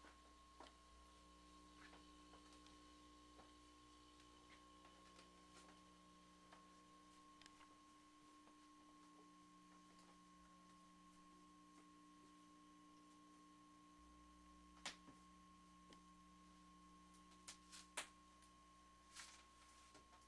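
Near silence: a faint steady electrical hum and whine in the recording, with a few soft clicks near the end.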